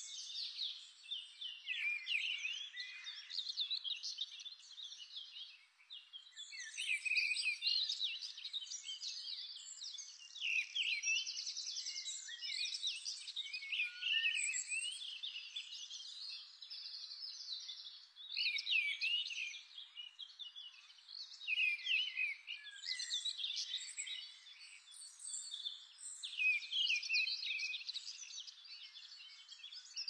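Small birds chirping and singing in quick, high-pitched twittering phrases and trills that come in bunches every few seconds.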